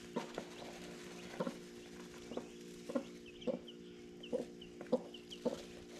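Broody hen clucking in a string of short, low, grumbling notes, every half second or so, showing she is upset at being disturbed on her eggs. Chicks peep faintly a few times, and a steady low hum runs underneath.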